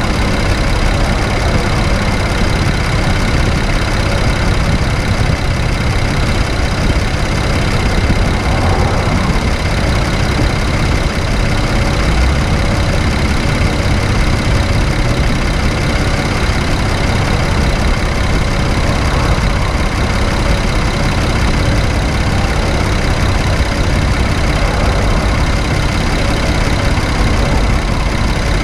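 A 2017 Infiniti Q50's VR30 twin-turbo V6 running steadily, heard as a constant, dense mechanical noise with no distinct events.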